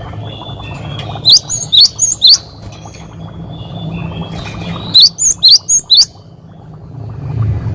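Cinereous tit (gelatik batu) calling in loud, sharp, quickly rising whistled notes: a run of four about a second in, then a run of five about five seconds in, with fainter twittering between, over a steady low hum.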